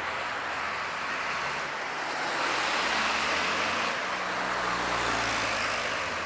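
Road traffic going by, with a motor vehicle's engine passing and the sound swelling a little about two and a half seconds in.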